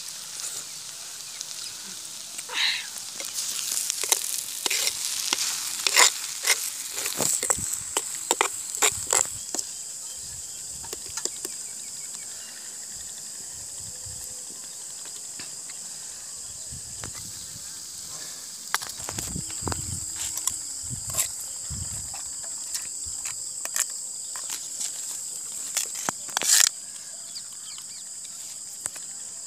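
A metal spoon scrapes and clinks against a clay cooking pot as the fried goat blood is scraped out onto a metal plate, with a few duller knocks later on. Behind it a steady high buzz of insects goes on.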